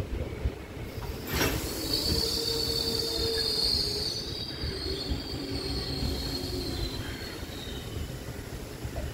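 Train wheels squealing against the rails, a high squeal that starts about two seconds in and fades out near the end, over the low rumble of the moving train. A sharp knock comes just before the squeal begins.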